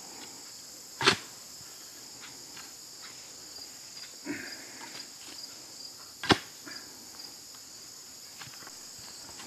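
Manual clamshell post-hole digger struck down into very dry, hard ground twice, each stroke a sharp strike, with a few small scrapes and clicks between. The ground is so hard it barely gives up any dirt. A steady high insect chorus runs underneath.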